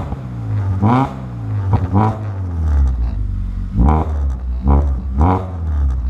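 VW Polo 6R's 1.6 petrol four-cylinder engine through an aftermarket Automech exhaust, idling with a low drone and revved in repeated short throttle blips, each rising and falling back, roughly one a second.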